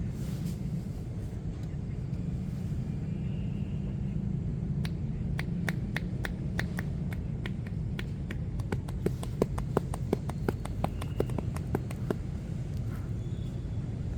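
A quick run of sharp slaps of hands striking the body in percussive massage, about three a second and speeding up before stopping, over a steady low rumble of street traffic.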